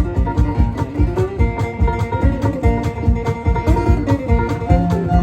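Live string band playing an instrumental break: plucked guitar and banjo over a steady percussion beat, with no singing.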